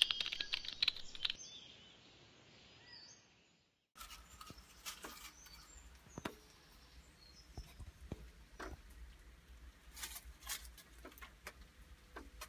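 The tail of an intro logo jingle, with sparkling chimes fading out over about the first second and a half, then about two seconds of silence. After that comes faint outdoor ambience with a low rumble and scattered soft clicks and ticks.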